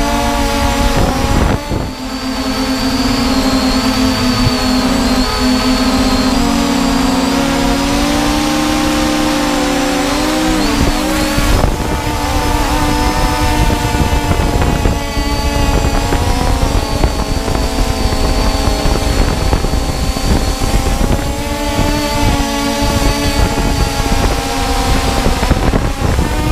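Multirotor drone's electric motors and propellers whining, picked up by the camera on board. Several pitches sit on top of one another and drift up and down as the drone manoeuvres, over a low rumble.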